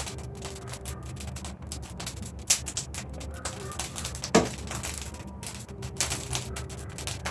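Wood bonfire crackling, with dense irregular pops and snaps; two sharper pops stand out, one about two and a half seconds in and a louder one a little past four seconds.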